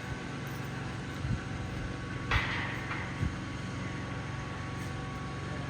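Steady engine hum, like a running motor or generator, with three short knocks and a brief hiss about two and a half seconds in.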